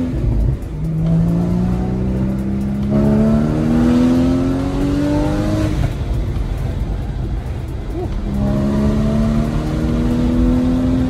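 Porsche Boxster Spyder's naturally aspirated flat-six engine under hard acceleration. Its pitch drops at an upshift about half a second in, climbs steadily for about five seconds, eases off briefly past the middle, then climbs again.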